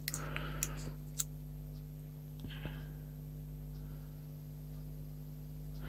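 A few faint clicks and a soft rustle as a resin model part is handled and turned in the fingers, mostly in the first second, over a steady low hum.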